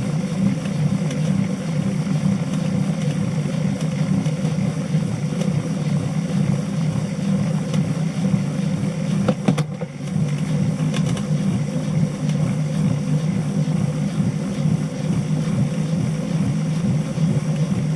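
Tacx Satori Smart magnetic-brake bike trainer running with a steady hum, an abnormal noise for a unit with only about 1000 km of use. A sharp click comes about nine and a half seconds in, with a brief dip in the sound just after.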